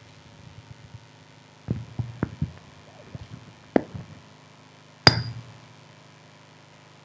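Handling noise at a pulpit: a few soft knocks and bumps, a sharper tap, then a single sharp clink with a brief ring about five seconds in, over a faint steady low hum.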